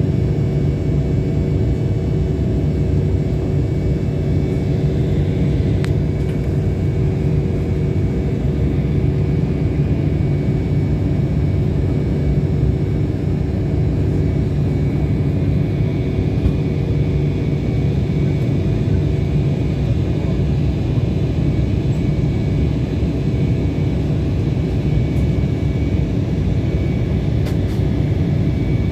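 Steady jet airliner cabin noise in flight: a continuous rumble of engines and airflow with a few constant humming tones.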